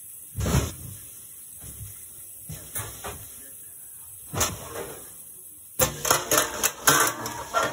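Pans knocking and clattering as one is pulled out of a kitchen cabinet: a few separate knocks, then a quick run of loud clanks near the end.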